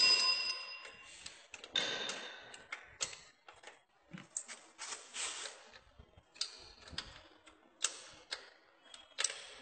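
A spanner clicking and clinking on the nuts and metal cover of a small stationary diesel engine as the cover's nuts are tightened: irregular sharp metal taps, a couple of them ringing briefly near the start.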